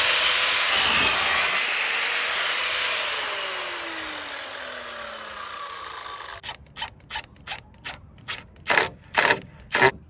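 Electric compound miter saw cutting through a wooden board, then its blade winding down with a falling whine that fades over several seconds. From about six seconds in, a hammer taps steadily, about three strikes a second, nailing into a wooden post.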